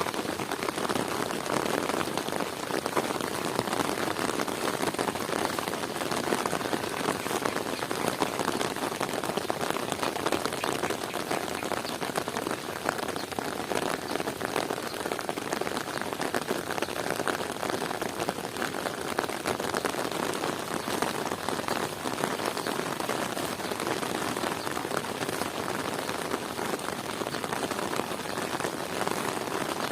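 Heavy rain falling steadily, a dense even patter with no let-up.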